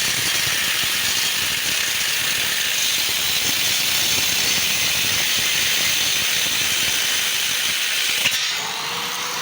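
Angle grinder running with its disc grinding steadily, a dense hissing grind with a faint whine. Near the end there is a click, then the grind eases a little and a faint rising whine comes through.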